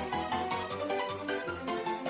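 Upbeat background music: quick plucked melody over a steady bass beat.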